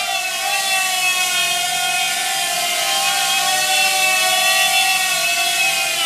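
Mini quadcopter drone's propellers and motors whining steadily in flight, the pitch dipping and rising slightly as the thrust changes.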